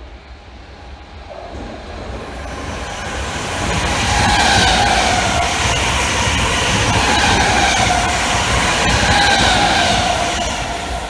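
Three coupled Class 325 Royal Mail electric multiple units passing at speed. The rumble and wheel noise build over the first few seconds, hold loud, then fade as the tail goes by near the end, with a whine that dips slightly in pitch.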